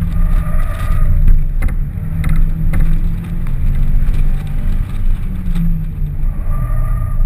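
2006 Pontiac Solstice's 2.4-litre four-cylinder engine running under load through an autocross course, heard from inside the open-top cabin with heavy wind buffeting on the microphone.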